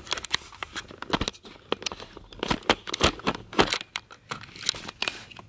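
Irregular rustling and crinkling with many sharp little clicks: handling noise close to the microphone.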